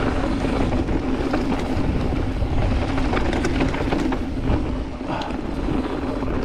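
Mountain bike riding down a dirt trail: wind buffeting the microphone over the rumble of tyres on dirt, with scattered clicks and rattles from the bike.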